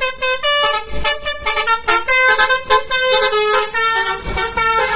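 Bus musical air horn ("telolet" horn) playing a fast tune of short notes that step up and down, several per second.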